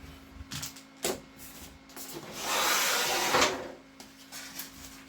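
Rustling and rubbing from a diamond painting kit being handled, with a few soft knocks about a second in and a louder rustle lasting just over a second, starting a little over two seconds in.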